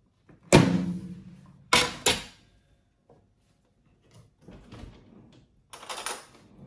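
Kitchen knocks: a hard object set down or struck with a brief ringing tail, then two sharper knocks in quick succession and a softer clatter near the end.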